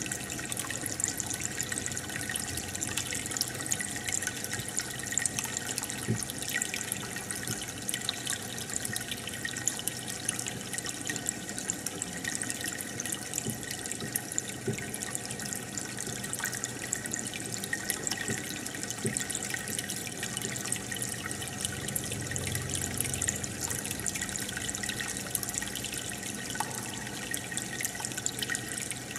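Aquarium water bubbling and trickling steadily from an air stone's stream of bubbles, with many tiny pops.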